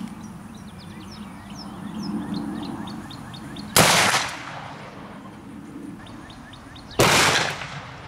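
Two gunshots from a .44 Magnum revolver with a 9.5-inch barrel, about three seconds apart, each ringing out for about half a second. Birds chirp in between.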